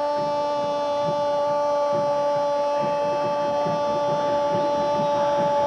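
Spanish-language football commentator's long, drawn-out 'goool' cry, one voice held on a single steady pitch, calling a goal.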